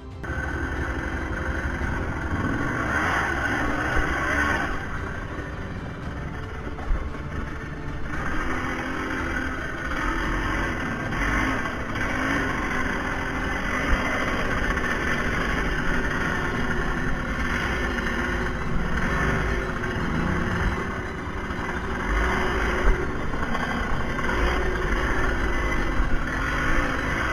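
ATV (four-wheeler) engine running and revving as it is ridden, its pitch rising and falling, with several sharp knocks and clatter along the way.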